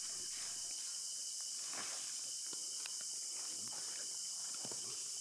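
Steady, high-pitched insect chorus, with faint scattered rustles and taps.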